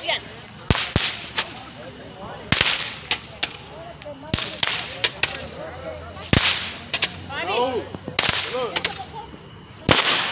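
Consumer fireworks going off: about a dozen sharp bangs and pops at uneven intervals, some followed by a short echoing tail.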